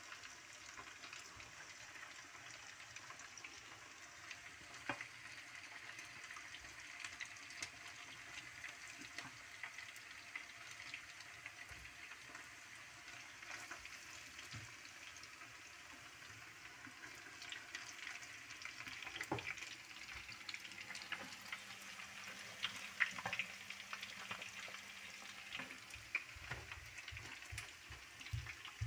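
Meat frying in hot oil: a faint, steady sizzle with scattered crackles and pops, busier in the second half.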